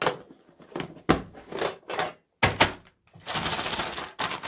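A metal candy tin is handled: several knocks and clacks as the lid and tin bump together, then about a second of rattling and crinkling as the wrapped Snickers miniatures inside are moved about.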